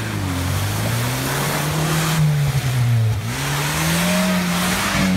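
UAZ 469 engine revving up and down twice as the vehicle churns through deep mud, its pitch climbing, dipping about three seconds in, climbing again and falling near the end, with a rushing hiss at each peak.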